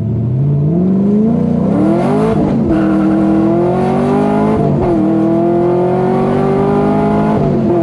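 LS3 V8 in a swapped Nissan 350Z accelerating hard through the gears. The engine note climbs, falls at an upshift about two and a half seconds in, climbs again, falls at a second shift about five seconds in, then rises more slowly until a third shift near the end.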